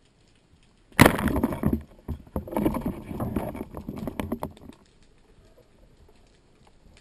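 A sudden burst of churning water with knocking and clattering close to an underwater camera starts about a second in, goes on in bursts and dies down to a quiet wash near five seconds.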